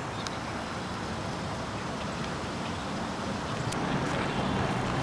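Steady outdoor background noise: a low rumble and hiss with a few faint clicks.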